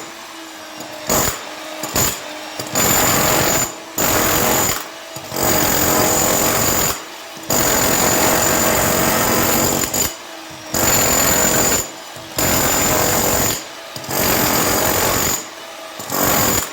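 Hilti TE 70 combihammer hammering into concrete in repeated bursts. It runs in about nine stretches of half a second to two and a half seconds each, with short pauses between them.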